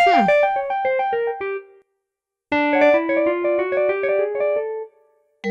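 Cartoon underscore on piano-like keyboard: two quick phrases of short, detached notes. The first steps downward; after a brief pause the second runs over a lower line that climbs step by step.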